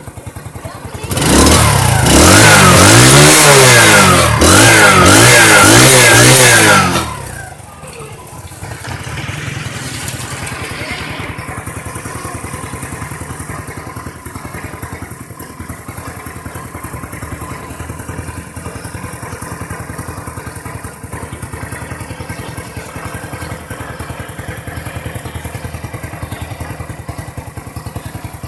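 Road Prince RP 70 motorcycle's 70cc single-cylinder four-stroke engine revved up and down repeatedly in quick throttle blips for about six seconds, then dropping back to a steady idle.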